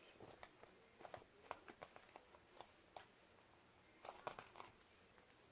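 Slime being squished and worked by hand, giving faint sticky clicks and pops, with a slightly louder cluster of them about four seconds in.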